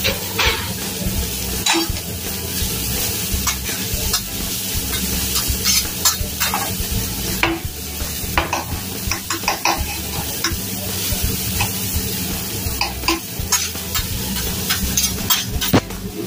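Food sizzling on a steel teppanyaki flat-top grill, with a metal spatula scraping and tapping on the griddle as fried rice is worked, many sharp clicks scattered through the steady sizzle.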